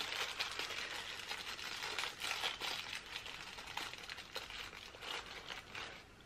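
Paper tape and small fishing hooks rustling and crinkling in the hands, a faint run of short crackles and light clicks while the hooks are set into a jig-head mould and taped in place. It dies away near the end.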